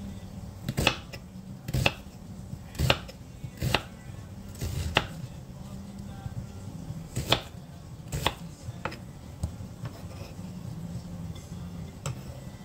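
Kitchen knife slicing an onion on a wooden cutting board: about ten sharp, irregular knocks of the blade hitting the board, roughly a second apart, thinning out after about nine seconds.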